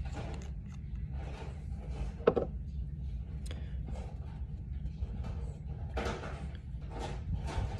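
Small handling noises at a fly-tying vise and its tools: soft rustles and clicks, with one sharp click a little over two seconds in, over a steady low rumble.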